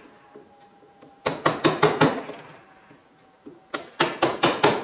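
Hammer striking an old screwdriver used as a drift to drive copper windings out of an electric motor's stator core: two quick runs of about six sharp metallic blows each, the first a little over a second in and the second near the end.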